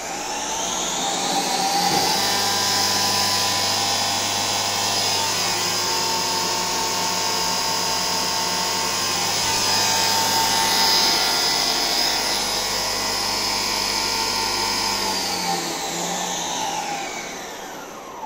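Epoxy granite CNC mill's servo-driven spindle spinning up to a commanded 6000 RPM with a high whine that rises in pitch over about two seconds. It then runs steadily at speed and spins down, falling in pitch, near the end.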